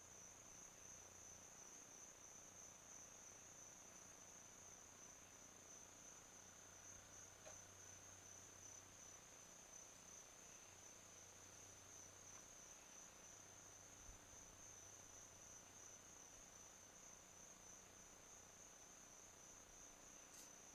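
Faint, steady chorus of insects: one high, continuous trill with no break.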